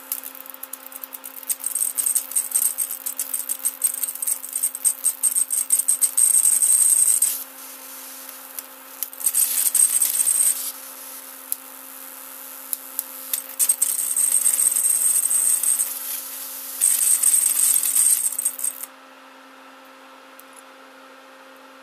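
MOSFET-driven flyback transformer throwing a high-voltage arc: crackling, hissing bursts with a sharp high whine, over a steady low hum. The arc stops suddenly near the end, with only the hum left, as the driving MOSFET fails shorted.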